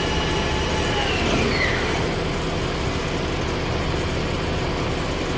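Kitamura MyCenter HX1000i machining center spindle whining at speed, then falling in pitch about a second in as it spins down, over the steady hum of the machine's pumps and motors.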